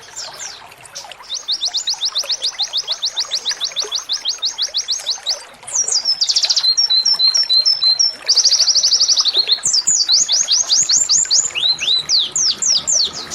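Domestic canary singing rapid-fire trills ('tembakan'): long runs of quick falling high whistles at about ten a second, broken around the middle by a few shorter varied phrases, then more fast trills.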